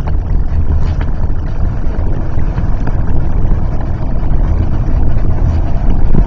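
Hummer H1 driving, a steady, loud low engine and road rumble.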